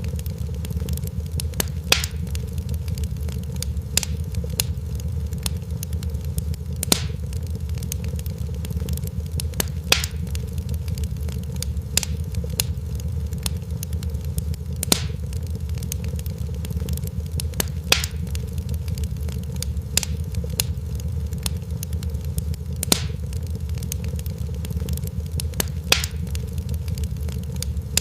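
Fireplace fire crackling: a steady low rumble with a sharp pop every two to three seconds and fainter crackles in between.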